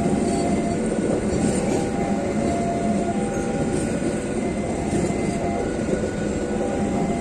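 Stainless-steel passenger coaches of the KA Sancaka Tambahan train rolling past at close range: steel wheels on the rails give a steady, unbroken rumble.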